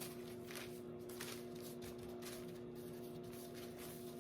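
Gloved hands rubbing olive oil into raw chicken breasts: faint, irregular rustling and squishing strokes over a steady hum.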